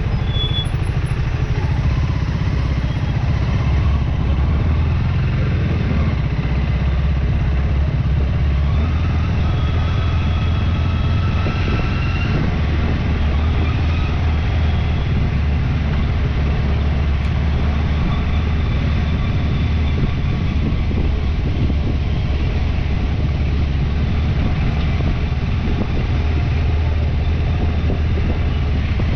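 Motorcycle engine running steadily under way, with a continuous low drone and road noise.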